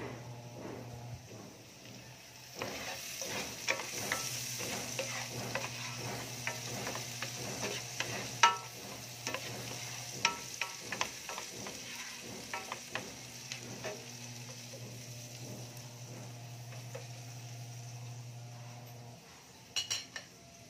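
Chopped onion and garlic sautéing in a frying pan with a steady sizzle that picks up about two and a half seconds in. A utensil stirs them, clicking and scraping against the pan now and then.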